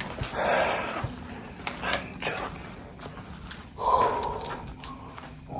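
Crickets and other night insects trilling steadily in a high register. Over them come a few brief rustling, scraping noises and faint clicks, two of them lasting about a second each.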